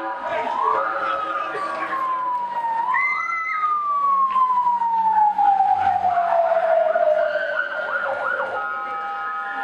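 Ambulance siren wailing: each quick rise in pitch is followed by a long, slow fall, the longest falling for about five seconds. Near the end a second, steady-pitched siren tone joins.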